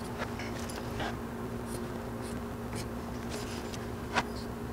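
Sharpie marker scratching and tapping on the aluminium frames of solar panels in short strokes, with a sharper click about four seconds in. A steady low hum runs underneath.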